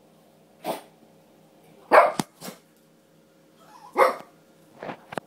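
Small dog barking at a sweeping brush, five or so sharp barks with the loudest about two and four seconds in.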